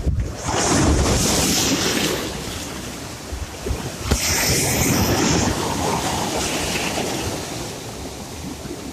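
Sea waves breaking and washing in: two surges about four seconds apart, each fading slowly away.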